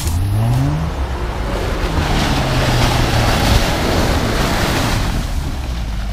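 A 4x4 SUV's engine revving up, rising in pitch in the first second, then a loud broad rush of tyres churning and spraying through wet mud and slush for a few seconds as it drives past.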